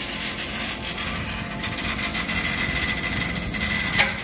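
A power tool running with a steady rapid rattle. A high whine joins it about a second and a half in, and there is one sharp click near the end.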